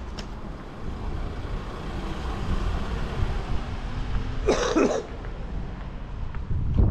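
A single short cough about four and a half seconds in, over a steady low rumble.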